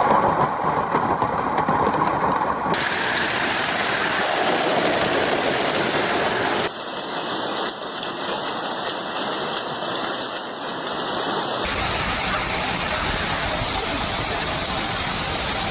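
Storm noise of heavy rain pouring down, in a run of short clips that cut abruptly from one to the next about every four to five seconds.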